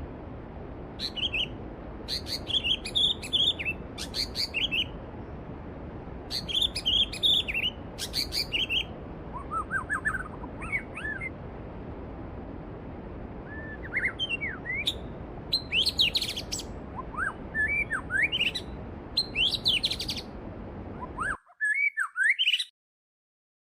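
Songbirds chirping and singing in quick, gliding phrases over the steady rush of a flowing stream. About 21 seconds in the water sound cuts off suddenly, leaving a couple of last chirps.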